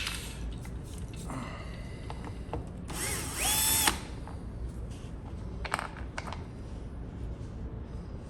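Cordless drill-driver spinning up with a rising whine that holds for about a second, backing out a door-trim screw, between scattered clicks of handling the tool and the trim.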